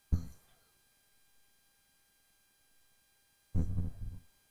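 Near silence with a faint steady hum, broken by a short sound right at the start and, about three and a half seconds in, a brief low utterance from a man's voice.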